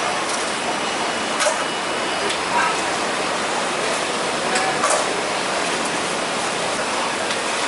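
Shellfish shells clacking a few times as they are picked out of the trays, over a steady hiss of running water and faint chatter.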